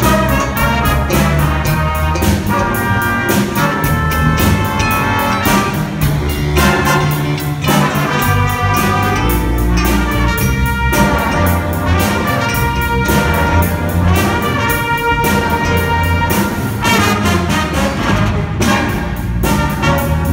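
Jazz band playing: trumpets and saxophone with flute and clarinet over electric guitar and drum kit, with a steady beat.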